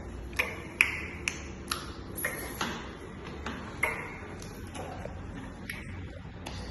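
A baby making a string of short, sharp clicking sounds at an uneven pace, about two a second.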